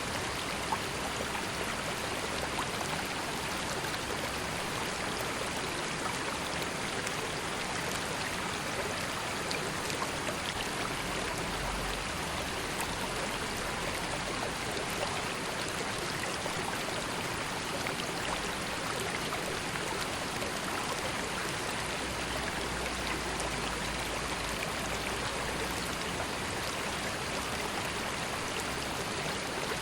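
River water flowing steadily: an even, continuous rush with small splashes and trickles.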